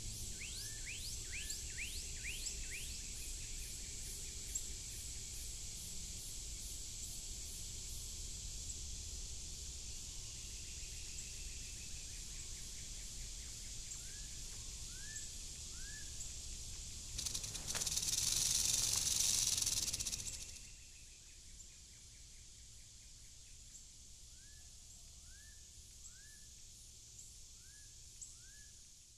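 Eastern diamondback rattlesnake's rattle buzzing for about three seconds, a little past the middle, the loudest sound here. Under it runs a steady high insect-like drone, with a bird's short rising whistled notes in quick series near the start, around the middle and near the end.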